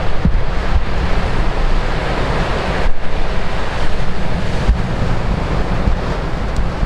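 Heavy typhoon surf breaking on the shore, a continuous wash of crashing waves, with strong wind buffeting the microphone in gusts.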